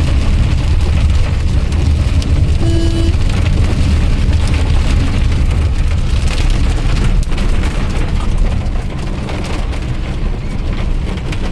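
Hailstones pelting a car's roof and windscreen, heard from inside the cabin: a dense, steady clatter of small hits over a deep rumble.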